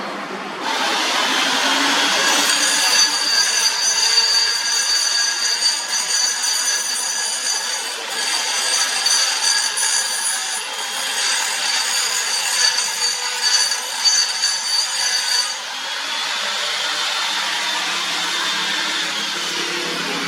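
Metal lathe cutting iron, a steady machining run with high-pitched ringing from the cut that stops about three quarters of the way through, then a tone that falls away near the end.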